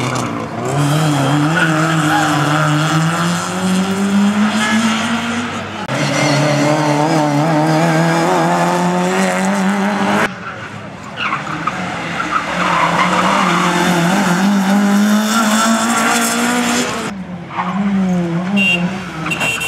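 Race car engines revving hard on the course, the engine pitch climbing and falling again and again as the cars are driven through the gears and corners, with several abrupt changes where one run gives way to another.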